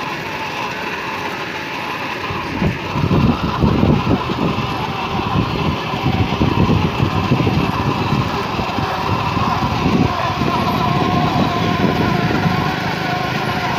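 A child's ride-on toy quad bike running: a steady, slightly wavering motor whine, with its wheels rumbling over paving stones from a couple of seconds in.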